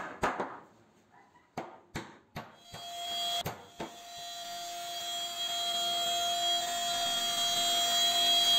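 CNC wood router's spindle running with a steady whine, the bit cutting into a wooden door panel, growing louder from about three seconds in. Before that, a few sharp clicks.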